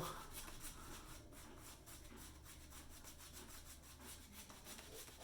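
Faint, quick, repeated scrubbing of a wet shaving brush working soap into a lather.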